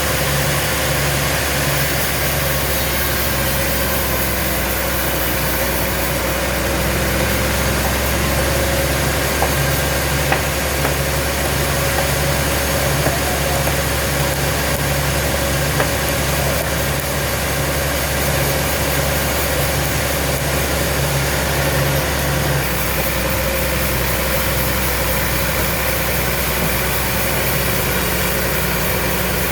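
Sawmill machinery running steadily: a motor drone with a regular low pulsing beat, which changes abruptly about three quarters of the way through.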